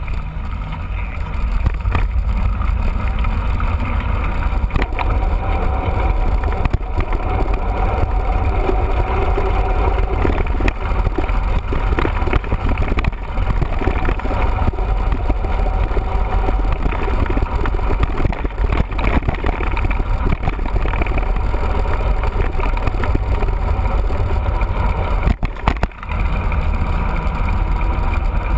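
Wind rumble and rolling noise on a camera carried on a mountain bike during a ride: a steady, loud rush with deep low rumble, briefly dipping near the end.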